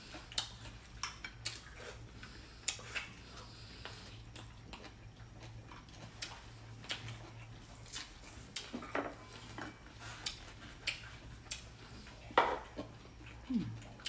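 Scattered light clinks and taps of chopsticks, spoons and bowls on a dinner table, irregular and unhurried, over a low steady hum.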